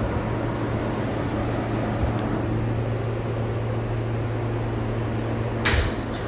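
Steady low hum and rail noise inside an R160A subway car as it slows into an elevated station and stops. A short loud burst of noise comes near the end.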